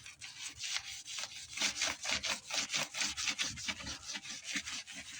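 Brisk back-and-forth scrubbing with a hand scrubber along the dirty edge of a dishwasher, several quick strokes a second.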